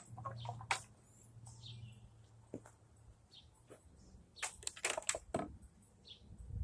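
Faint, scattered bird chirps, with several sharp clicks or knocks in a cluster a little past the middle.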